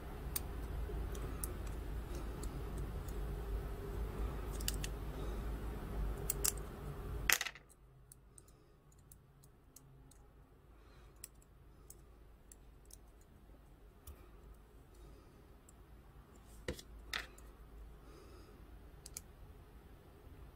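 Small scattered clicks and light taps of a small screwdriver and plastic model-kit wheel parts being handled and fitted. These sit over a low steady hum that cuts off abruptly about seven seconds in.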